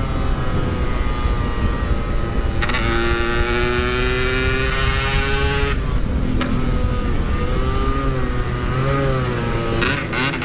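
Yamaha RX-King's two-stroke single-cylinder engine running hard through its exhaust while riding, the pitch climbing steadily in each gear with breaks at the shifts near the start, about a quarter of the way in and just past halfway. After that the note rises and falls with the throttle, with another shift near the end, over a heavy rumble of wind on the microphone.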